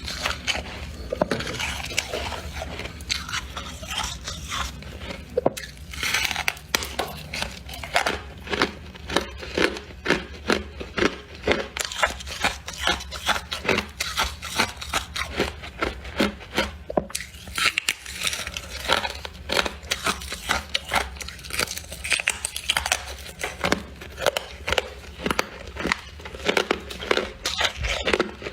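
Close-up chewing of freezer frost: rapid, crisp crunches, about two to three a second, with some scraping.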